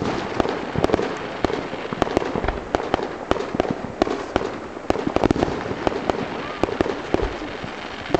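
Aerial fireworks shells bursting in a rapid, uneven series of sharp bangs, a few a second, over a steady background wash.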